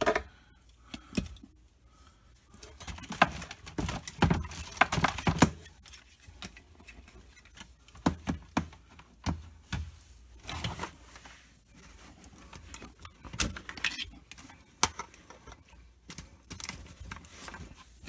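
Cables and plugs being handled: irregular light clicks, clinks and rustling, with a few louder knocks.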